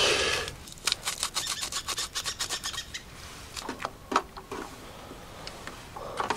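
Hands making instant coffee in a metal camp mug: a hissy rush stops in the first half-second, then a quick run of scratchy clicks for about two seconds, then a few light metal clinks against the mug.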